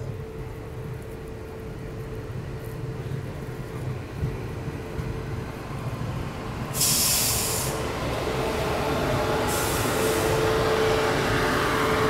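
A passenger train running, heard from aboard: a steady rumble of the coach with a constant tone over it. A loud hissing burst comes about seven seconds in and another near ten seconds, and the rumble grows louder from the first burst on.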